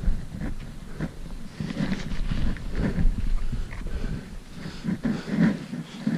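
Footsteps crunching in packed snow, a step about every half second.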